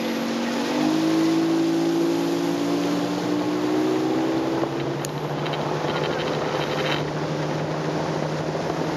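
Evinrude E-TEC 250 outboard, a two-stroke V6, driving a rigid inflatable boat. Its pitch rises in the first second as the boat speeds up, then holds nearly steady. Water rushing along the hull and wind on the microphone run underneath.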